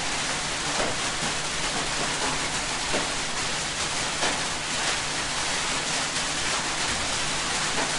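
Steady hiss of background noise with a faint low hum under it.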